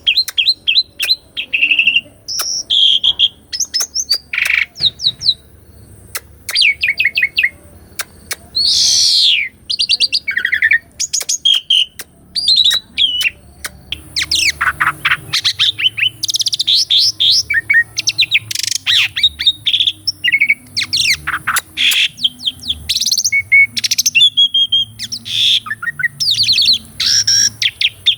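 Asian pied starling (jalak suren) singing a long, varied song of loud whistles, chirps, fast trills and sharp clicks, one phrase after another with barely a pause.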